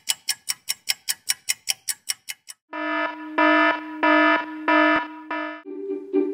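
Alarm sounds: a rapid ringing of about five sharp strikes a second for some two and a half seconds, then, after a brief gap, a louder pitched alarm tone sounding in long pulses. Near the end a lower, softer two-note rhythmic sound takes over.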